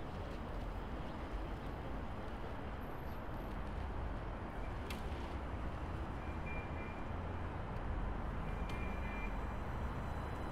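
Steady city background noise: a low, even rumble of road traffic, with a few faint clicks and brief high chirps in the second half.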